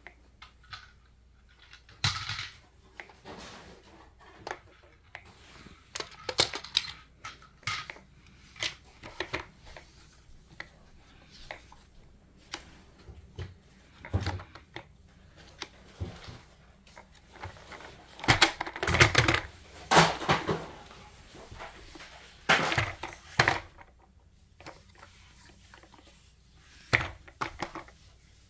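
Irregular knocks, clicks and clatter of a toy truck being handled and bumped about, with a louder, busier flurry of clatter about two-thirds of the way through.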